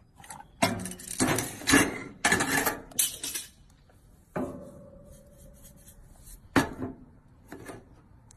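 Metal grilling tongs and a gas grill's metal grates clinking and clattering in a quick run of knocks, then a struck clang that rings briefly about four and a half seconds in, followed by a few single knocks.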